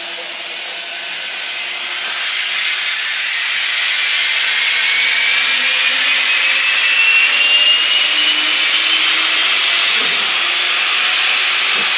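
Compressed air hissing through pneumatic aircraft gyro horizons and their air motor, getting louder over the first few seconds. A thin whine rises slowly in pitch through the middle of the sound as the air-driven gyros spin up.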